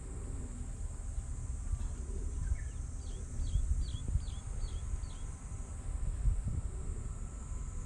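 Outdoor ambience with a steady low rumble and a steady high hiss, over which a bird calls a quick run of about six short, downward-sliding notes about three seconds in.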